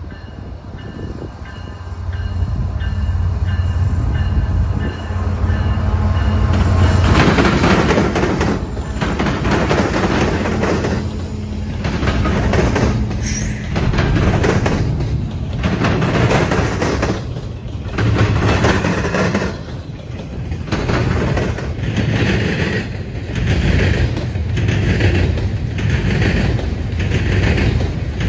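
CN double-stack intermodal freight train: the diesel locomotives' low engine drone builds as they approach, then the train passes close by from about seven seconds in. The container cars follow with a steady rumble and a regular clack of wheels over the rails roughly every two seconds.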